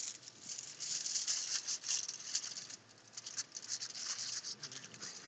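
Crinkly wrapping material being handled and pressed around a branch by hand, a dense irregular crackling that cuts off suddenly at the end.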